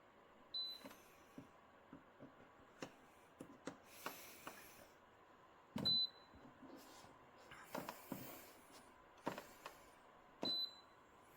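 Three short high-pitched beeps from a MeacoDry Arete One dehumidifier's control panel as its buttons are pressed, each with a click, amid light clicks and rustling from handling the unit.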